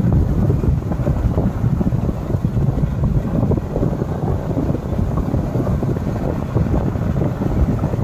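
Wind buffeting the microphone of a moving motorbike: a loud, steady low rumbling rush.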